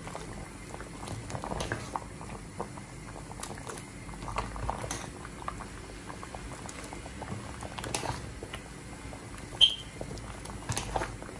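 Thick coconut-milk bilo-bilo simmering in a metal pot, bubbling with small pops, and the metal ladle stirring and knocking against the pot now and then, once sharply near the end.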